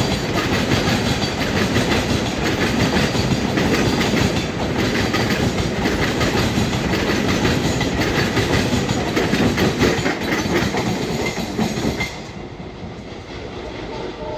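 Loaded container wagons of a freight train rolling past close by, their wheels clattering over the rail joints in a steady rumble. About 12 s in the sound drops suddenly to a quieter, duller train rumble.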